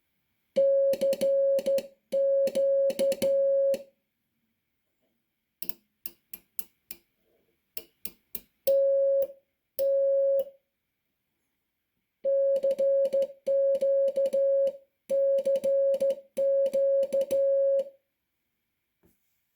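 Morse code sent on a NATO Morse key: a steady beep keyed on and off in dits and dahs, with the key's contacts clicking at each stroke. About six seconds in, the key is tapped several times with only bare clicks and no tone.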